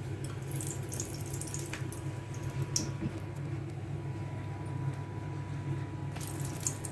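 A pan heating on a lit stove: a steady low hum with scattered light crackles and ticks.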